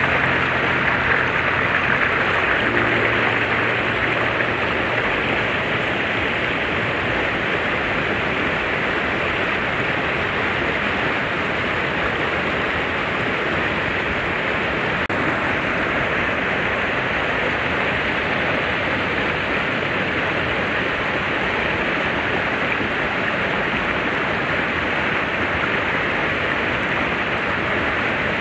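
Steady rushing of river water, an even hiss without pitch that holds at one level throughout. The tail of background music fades out in the first few seconds.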